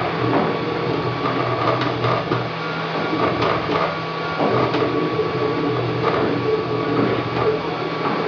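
Wanhao Duplicator 3 dual-extruder desktop 3D printer printing: its stepper motors whine in several steady tones that shift every second or so as the print head moves. Underneath is an even hiss with light ticks.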